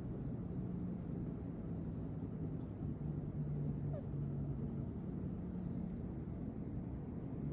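British shorthair cat snoring in its sleep: low, drawn-out snores a second or two long, one after another.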